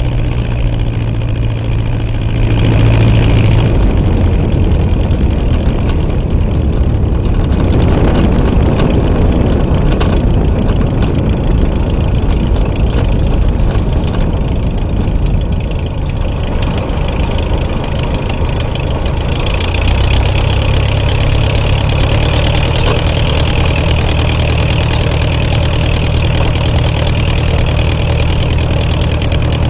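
Light aircraft's four-cylinder Continental engine in a 1943 Taylorcraft L-2B running steadily at low power, near idle, heard from the wing strut with wind and rushing noise. From about a quarter of the way in, a rougher rushing noise blurs the engine note. About two-thirds in, the engine comes back steadier and stronger.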